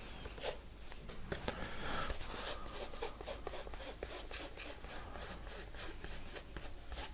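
Hands rubbing and smoothing acetate fabric covering down onto a balsa model-plane frame, working it into wet PVA glue: a soft cloth brushing that turns into a run of quick strokes, about three a second, in the second half.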